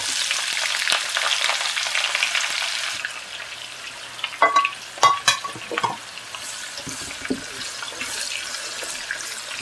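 Sliced onions dropped into hot oil in a nonstick wok, sizzling at once, strongest for the first three seconds and then settling to a steadier sizzle as they are stirred with a silicone spatula. A few sharp knocks about halfway through as the plate is scraped over the wok.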